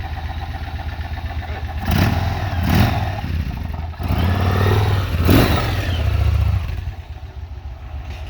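Yamaha Road Star Warrior's 1670 cc air-cooled V-twin running with a steady pulse, revving up twice, about two seconds in and again from four to six seconds, then dropping back to a quieter low note near the end. The owner says it runs completely smooth.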